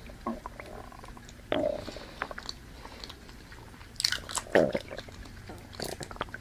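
A person chewing and biting banana close to the microphone, with wet mouth clicks and smacks. There are a couple of short throaty vocal sounds, about one and a half seconds in and again near four and a half seconds.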